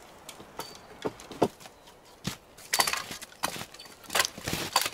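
Footsteps in rubber boots crunching over thin snow and forest litter, with dead twigs and branches cracking and snapping underfoot. The steps and snaps come irregularly, sparse at first and then thicker and louder in the second half.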